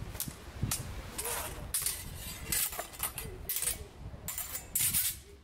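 Steel training swords and round bucklers striking each other in a sword-and-buckler drill: a string of about half a dozen sharp metallic clinks and knocks, spaced roughly half a second to a second apart.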